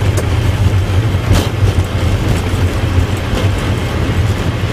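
Steady low hum and rumble inside a Boeing 777 cockpit as the airliner rolls along the runway and turns off after landing, with a few faint knocks, the sharpest about a second and a half in.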